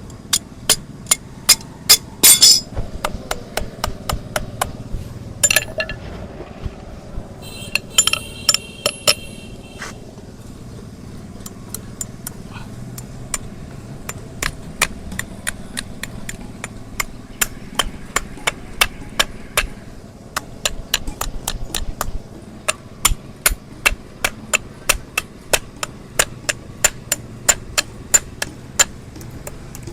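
Hammer blows in hoof work on a donkey's hoof: a long run of sharp, regular taps at about two a second, thinning out for a few seconds around the ten-second mark.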